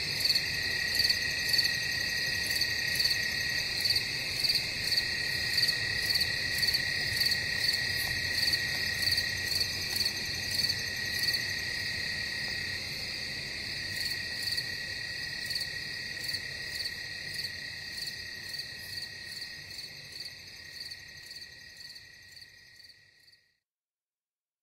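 Rainforest night chorus of insects and frogs: a steady high trill with a regular pulse a little more often than once a second. It fades away near the end and stops.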